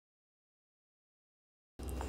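Dead silence: the sound track drops out completely. A faint steady background noise returns just before the end.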